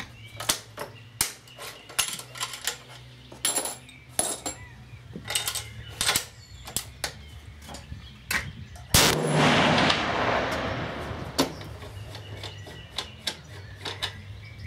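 Clicks and knocks of a Remington 700P rifle being handled on the bench, then about nine seconds in a single shot from it in .338 Lapua Magnum fitted with a T3 Terminator muzzle brake, its report ringing out for about a second and a half before more handling clicks.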